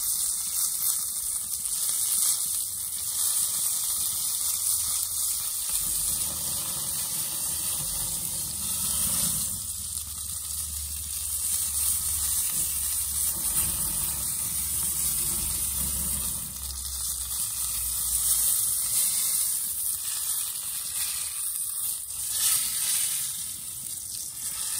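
Dry-aged tomahawk ribeye searing on a tallow-greased cast iron plate over a gas grill, with a steady sizzle of meat and fat frying against the hot iron.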